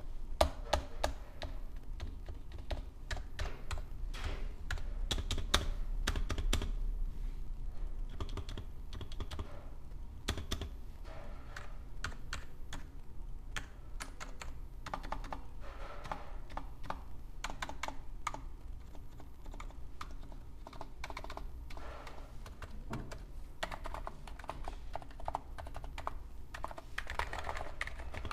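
Continuous typing on a Hansung GTune CHL8 electrostatic capacitive keyboard with 50 g switches and stock keycaps, keystrokes following one another in quick, uneven runs.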